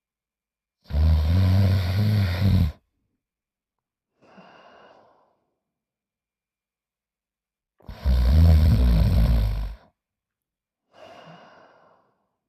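Snoring in slow, regular cycles: two long, loud, low-pitched snores about seven seconds apart, each followed a couple of seconds later by a fainter breath out.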